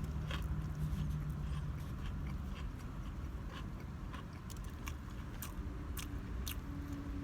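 Biting and chewing into a crunchy fried spicy chicken sandwich, with short crisp crunches scattered through, over a steady low hum.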